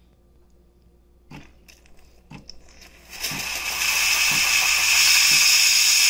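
Steam wand of a Calphalon Temp iQ espresso machine hissing steadily into the drip tray, starting about three seconds in after a few faint ticks, as the machine heats up for steaming and vents steam.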